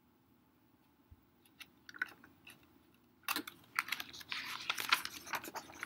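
Glossy page of a hardcover picture book being turned by hand. A few faint ticks, then from about three seconds in a run of paper crinkling and rustling.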